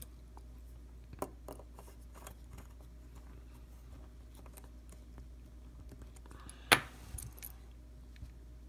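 Scattered small metallic clicks and taps as a steel coil mandrel is worked against the coils and posts of a stainless rebuildable dripper deck, over a faint steady low hum. A few clicks come about a second in, and the sharpest, loudest one comes near the end.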